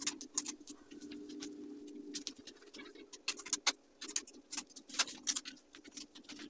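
Chart paper rustling and crinkling in many short, irregular crackles as it is folded and pressed around the edges of a cardboard sheet.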